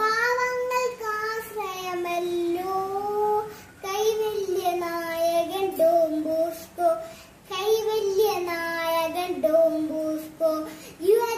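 A young girl singing solo without accompaniment, in held phrases that glide in pitch, with brief pauses for breath about four seconds in and again about seven and a half seconds in.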